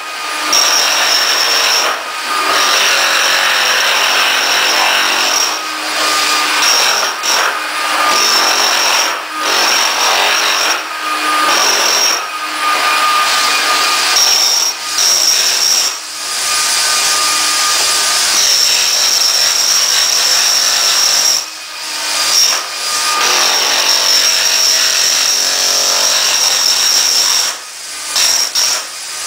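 Electric power tool run in long bursts against ceramic floor tile, with a steady high motor whine and tile grinding and breaking, stopping briefly many times as the trigger is let off and pulled again.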